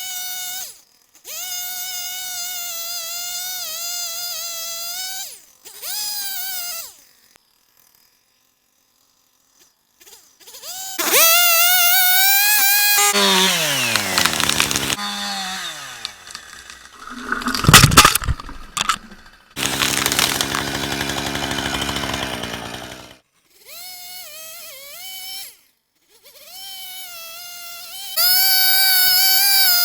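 Two-stroke gas chainsaw cutting cedar in several short clips with abrupt cuts between them, its engine revving up and dropping back, and a few seconds of silence partway through. About halfway through the engine winds down, and a loud burst of cracks and thumps follows. Near the end the saw runs at high revs.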